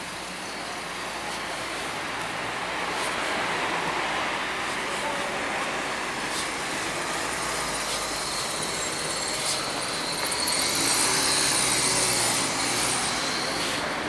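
Road traffic passing as a steady wash of engine and tyre noise, swelling as a vehicle goes by with a louder hiss near the end.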